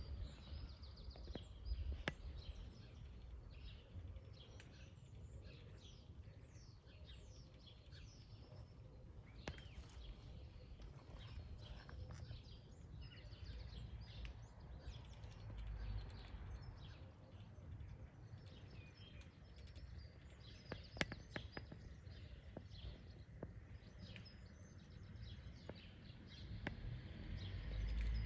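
Small birds chirping repeatedly in short calls, over a low rumble, with a few sharp clicks.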